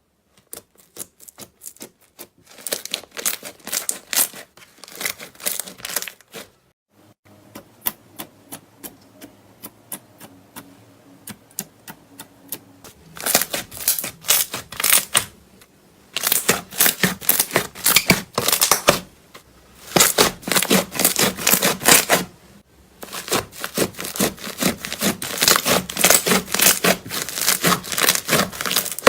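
Slime being squeezed and poked, making rapid runs of crackling, clicking air-bubble pops in several bursts, with a quieter pause in the first half.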